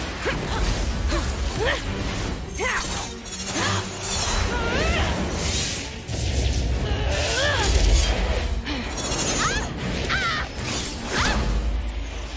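Animated action-scene soundtrack: music under a dense run of fight sound effects. There are whooshes, crashes and sharp impacts, with short swooping pitched sounds throughout.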